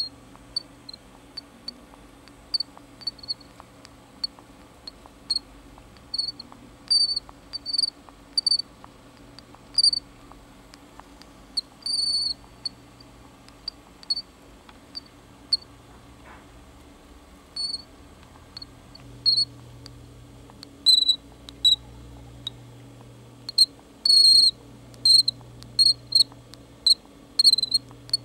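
A swift breathing with a short, high-pitched click or squeak on its breaths, repeating irregularly about once a second and coming more often in the second half. The breathing noise points to a respiratory problem.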